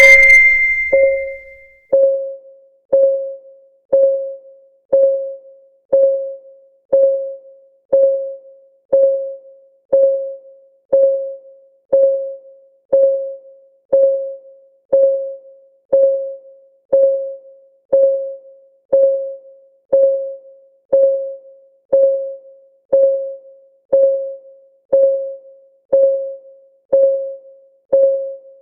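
Countdown timer's clock-ticking sound: short pitched ticks at an even one per second, each dying away quickly. A bright ringing ding sounds right at the start.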